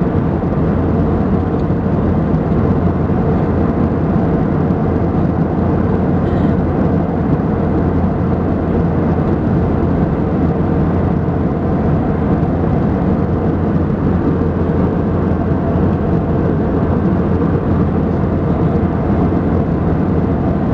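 Steady cabin noise of an Airbus A320 airliner in cruise, heard from a seat beside the wing: an even drone of jet engines and airflow, with a faint steady hum.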